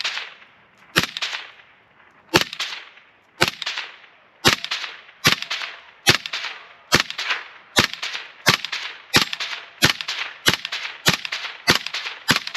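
Suppressed Kel-Tec P50 pistol in 5.7x28mm firing about fifteen single shots, each a sharp crack with a short echoing tail. The shots come faster as the string goes on, from about one a second to nearly two a second near the end.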